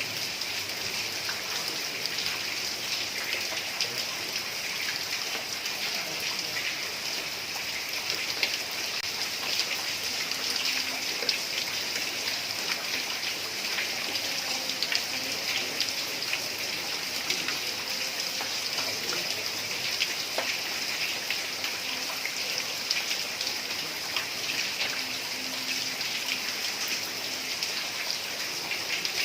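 Heavy rain falling steadily on a tiled roof, a dense hiss of rainfall with many individual drops tapping through it.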